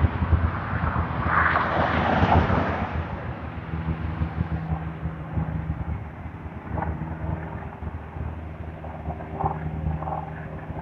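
Wind buffeting the microphone in gusts, loudest in the first few seconds, over a steady low engine-like hum.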